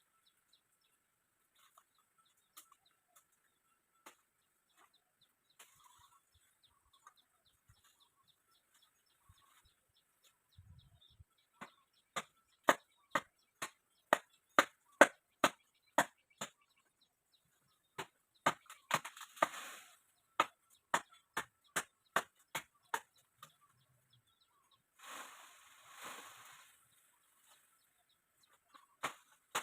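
Two runs of sharp knocks, about two a second, lasting several seconds each, with a short rush of hissing noise during the second run and another a few seconds after it.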